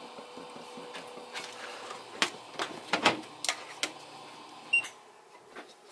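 A steak bag lifted out of a sous vide water bath with metal tongs, then a run of sharp plastic and metal clicks and clacks, about six over two and a half seconds, as the perforated plastic lid is set back on the container and the tongs are put down.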